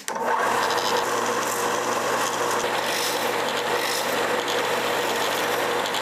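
Ryobi belt sander switching on and running steadily with a steady hum, as a clear Lexan (polycarbonate) lure blank is held against the moving sanding belt to sand off saw marks, giving a continuous rasping grind.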